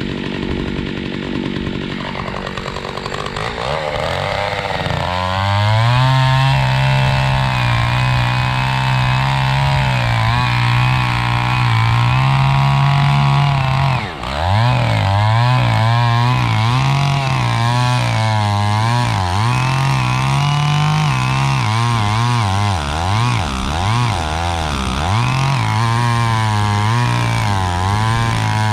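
John Deere 70V two-stroke chainsaw engine, just started, running low for a few seconds and then opened up to high revs. About halfway through the revs dip briefly, then the pitch wavers up and down repeatedly.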